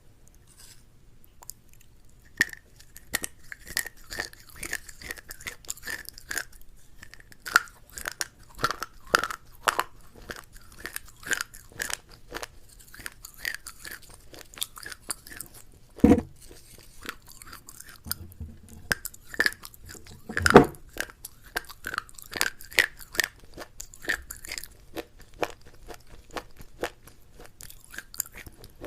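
A person chewing crunchy food close to the microphone: a dense run of crisp crackling crunches that starts a couple of seconds in, with two heavier bites about 16 and 20 seconds in.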